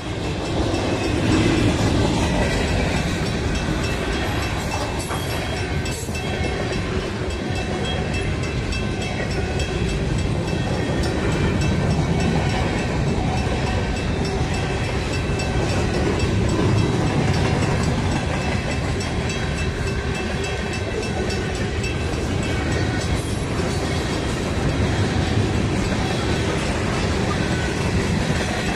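A CN freight train's cars passing close by, a steady rumble of steel wheels on the rails.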